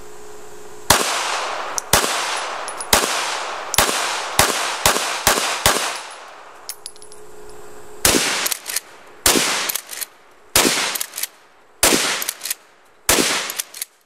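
A string of about fifteen gunshots fired one after another at irregular intervals, roughly a second apart, with a pause of a couple of seconds midway; each shot is a sharp crack with a short ringing tail.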